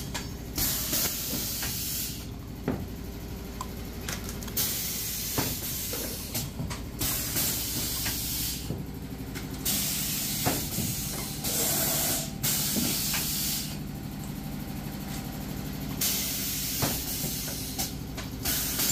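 Semi-automatic PET bottle blow moulding machine: about six loud bursts of compressed-air hiss, each lasting one to two seconds, with quieter gaps between. A steady low machine hum runs underneath, with scattered light clicks and knocks.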